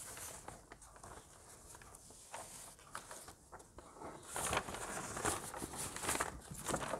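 Loose sheets of paper rustling and crackling as they are handled and leafed through, in irregular bursts that grow busier and louder in the second half.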